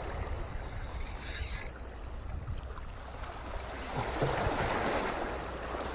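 Sea water washing against rocks, mixed with wind on the microphone, with a swell of water noise about four seconds in.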